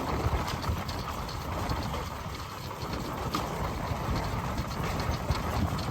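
Steady low rumbling noise with scattered faint clicks, like a vehicle ride or machinery.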